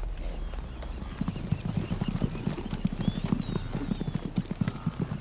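Hooves of running wildebeest: a rapid, irregular drumming of many hoofbeats that starts about a second in.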